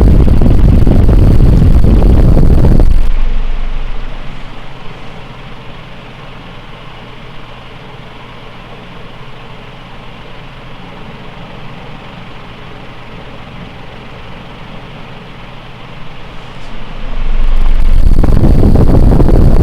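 SMC KA36 metal-blade ceiling fan running: its strong airflow buffets the microphone with loud wind rumble, which fades about three seconds in to a quieter steady whoosh and faint motor hum, then comes back loudly near the end.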